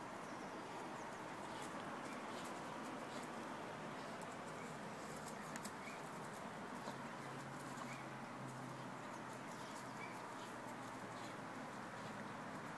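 Quiet outdoor garden ambience: a steady low hiss with a few faint, short bird chirps now and then and some light ticks.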